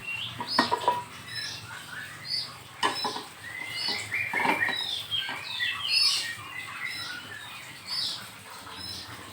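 Small songbirds chirping with many short, quick calls, over a few sharp knocks.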